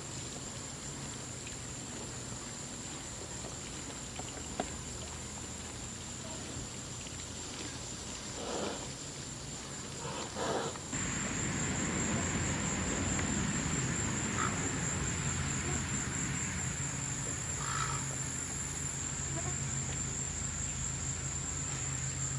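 Steady high-pitched buzz of an outdoor insect chorus, with a few brief rustling noises near the middle. The background grows louder and fuller about eleven seconds in.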